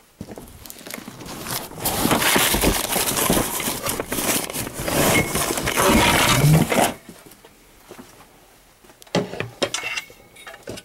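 Plastic packing bag crinkling and rustling loudly for about seven seconds as surplus GE Rangr mobile radios are handled in their shipping box. After that come a few scattered knocks of the metal radio cases.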